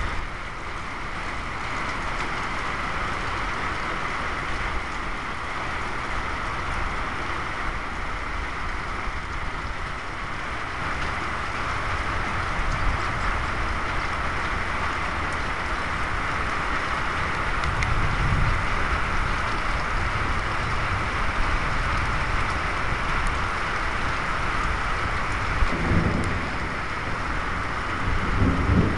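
Steady rain falling in a storm, a continuous hiss. Low gusty rumbles of wind on the microphone swell up a few times in the second half.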